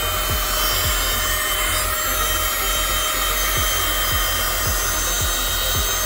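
Handheld car vacuum that runs off the cigarette lighter, running steadily with a rushing hiss, under background music with an electronic kick drum about twice a second.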